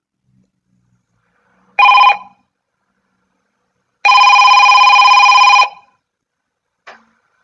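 A telephone bell ringing: a short ring, then a longer ring of about a second and a half, followed by a faint click near the end.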